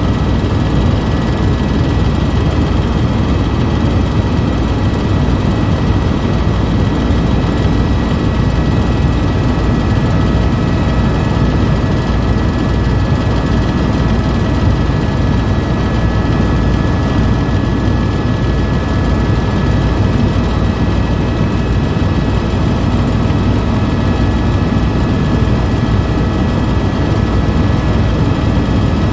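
Tour helicopter's engine and rotor noise heard from inside the cabin: a loud, steady, low drone with a steady high whine above it.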